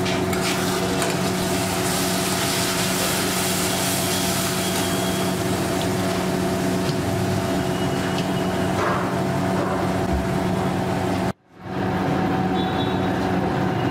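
Curd gravy cooking in a kadai on a gas burner: a steady hissing sizzle over a constant low hum. The sound breaks off for an instant about three-quarters of the way through.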